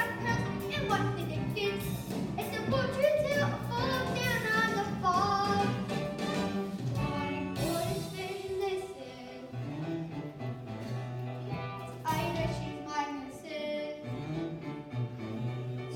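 Young performers singing a musical-theatre number over instrumental accompaniment.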